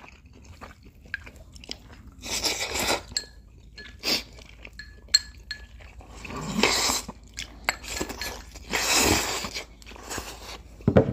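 Instant noodles slurped with chopsticks: three long, noisy slurps of about a second each, with chewing and a few light clinks in between.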